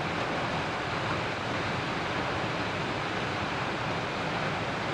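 Waterfall running, a steady, even rush of falling water.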